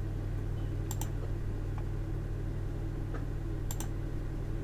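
Two sharp computer-keyboard clicks, about a second in and near the end, over a steady low electrical hum.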